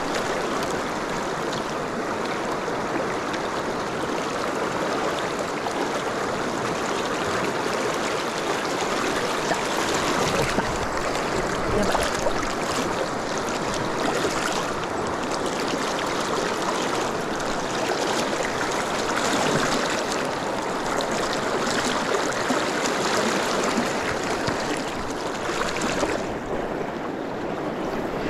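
Shallow river rapids rushing steadily around a wading angler, an even, unbroken water noise.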